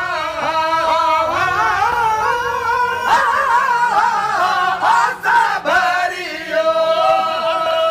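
Men singing a Sindhi molood, a devotional chant in praise of the Prophet Muhammad, in wavering, ornamented vocal lines. A long held note comes in after about six and a half seconds.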